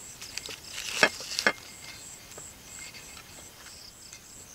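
A metal spoon clinking and scraping on an enamel plate as lontong is cut out of its banana-leaf wrapping, with rustling of the leaf and two sharp clinks about a second in. Crickets chirp in a steady pulsing rhythm throughout.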